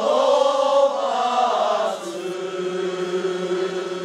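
A crowd of men chanting together in unison, the voices rising and falling. About halfway through it quietens into one long steady held note.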